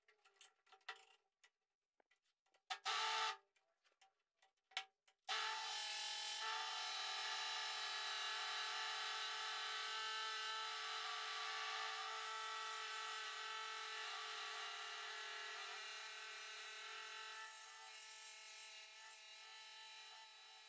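Electric scroll saw cutting a wooden board. A few light clicks and a short scrape come first; about five seconds in the saw starts abruptly and runs steadily, a hum with the rasp of the reciprocating blade in the wood, growing quieter near the end.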